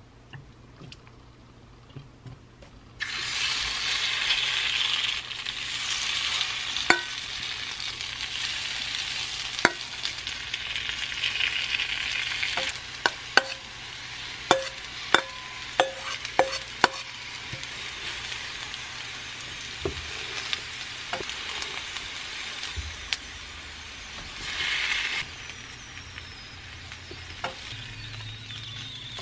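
Shredded potato pancake mixture frying in oil in a nonstick pan: a hiss of sizzling starts suddenly about three seconds in and carries on, swelling again near the end. About halfway through, a quick run of sharp clicks of a utensil against the pan.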